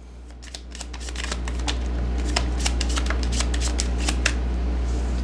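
Tarot cards being shuffled and handled: a rapid run of sharp card flicks that builds up over the first two seconds, over a low steady hum.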